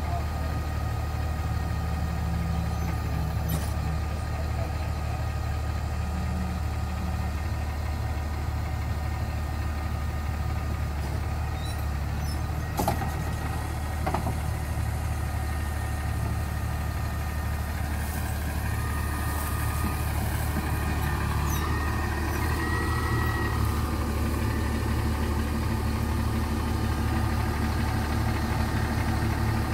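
Motor grader's diesel engine running steadily at low speed, with two sharp knocks about a second apart midway and a faint whine that wavers in pitch a little later.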